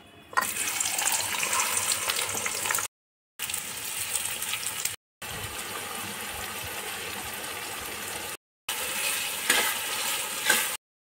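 Sliced red onions and garlic hitting hot oil and sizzling hard in a frying pan, the sizzle starting suddenly just after the start and going on, broken by three brief silent gaps. A couple of sharp scrapes of a metal spatula against the pan near the end as the onions are stirred.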